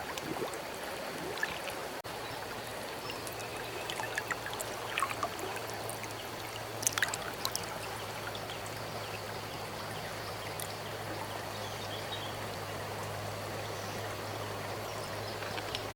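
Water flowing steadily, like a small stream trickling, with a few light clicks about seven seconds in.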